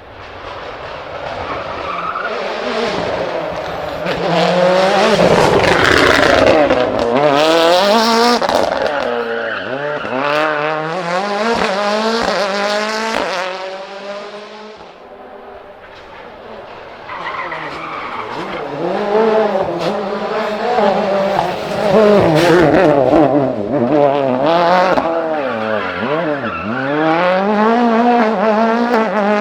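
WRC rally car engines revving hard and climbing through the gears, the pitch repeatedly rising and dropping at each shift, with sharp cracks and pops from the exhaust and squealing tyres. The sound swells twice, first around five to eight seconds in and again in the second half.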